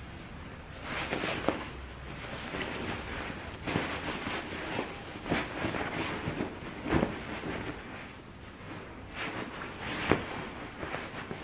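Fabric cushion covers rustling and brushing as they are pulled and worked over sofa cushions by hand, with a few sharper pats and tugs standing out every second or two.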